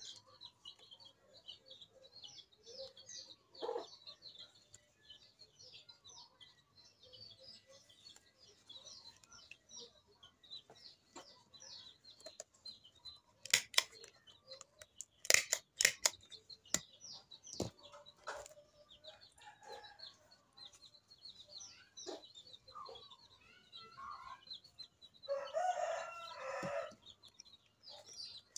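A handheld stapler snapping shut several times in quick succession around the middle, driving staples through folded banana leaves. Small birds chirp throughout, and a rooster crows once near the end.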